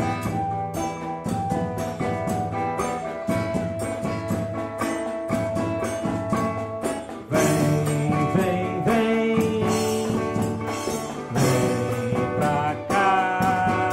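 Music: a drum-driven track with pitched melodic instruments over a steady beat, which gets louder about seven seconds in.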